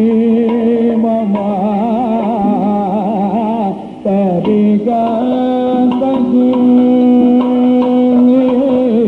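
Kathakali padam singing: a male voice sings ornamented, wavering notes in the Carnatic manner, breaks off briefly about four seconds in, then holds a long steady note, with drum accompaniment.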